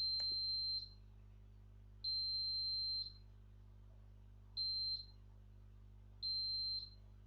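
Electronic beeper sounding the Morse code letter Z (dash dash dot dot): two long beeps, then two short ones, all at the same high pitch. A short click comes just after the first beep starts.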